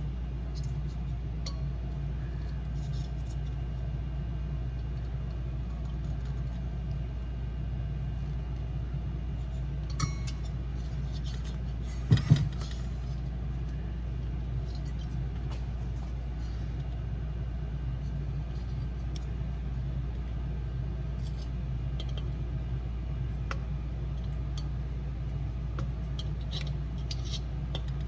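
Hand tools clicking and clinking against the metal parts of a diesel heater as the igniter is worked loose with a flathead screwdriver and wrench, with a few sharp knocks about twelve seconds in, over a steady low hum.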